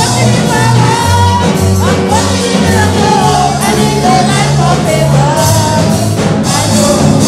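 Background music: a song with a singing voice gliding over a bass line and a steady beat.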